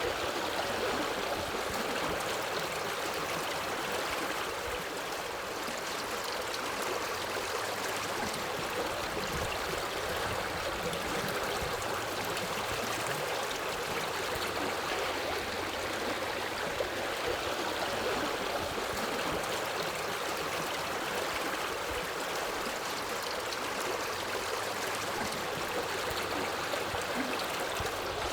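Forest river flowing over rocks: a steady rushing and babbling of water, even in level throughout.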